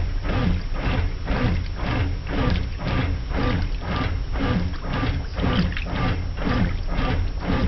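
Brastemp top-loading washing machine agitating during its rinse: water sloshing back and forth in an even rhythm about twice a second over the steady hum of the motor.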